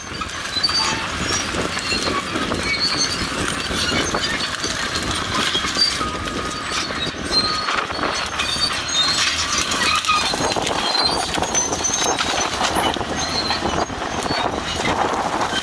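Crawler bulldozers working a heavy land-clearing chain through brush: a steady din of clanking steel tracks and chain, with short high metallic squeals. The lower rumble grows fuller about ten seconds in.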